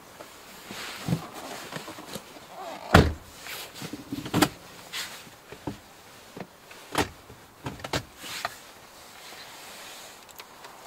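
A person getting into the driver's seat of a 2013 Subaru Forester, with rustling of clothing and seat. The driver's door slams shut about three seconds in, the loudest sound, followed by several sharper clicks and knocks as he settles in with the key.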